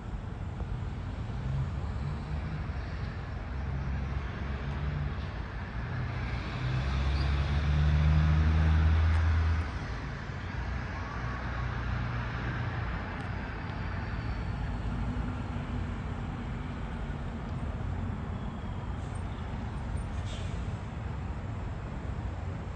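Road traffic: a steady rumble of passing cars and trucks, with one vehicle going by louder about seven to nine seconds in.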